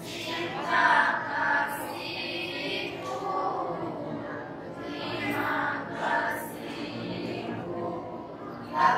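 A female vocal group singing a nasyid, an Islamic devotional song, together as a choir.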